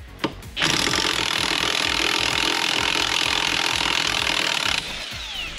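Cordless impact wrench with an inch-and-an-eighth socket hammering on the front yoke nut of an NP231 transfer case. It starts about half a second in, runs loud and steady for about four seconds, then winds down as the nut comes off.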